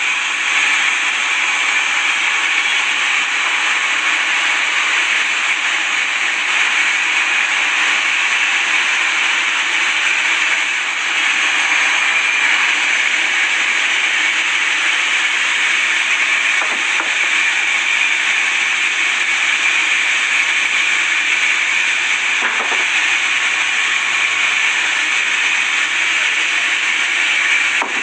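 A sawmill saw cutting through wood: a loud, steady hissing noise that holds without a break, with a couple of faint clicks along the way.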